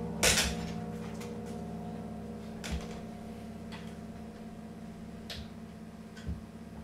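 Low ringing tones of Tibetan singing bowls, slowly fading. A sharp knock comes just after the start, and a few lighter clicks and taps follow.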